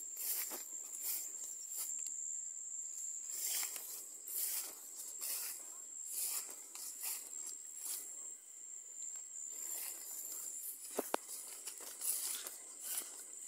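Bamboo leaves and grass rustling and swishing as someone pushes through them on foot, in irregular strokes about once or twice a second, over a thin steady high-pitched whine. One sharp snap or knock about eleven seconds in.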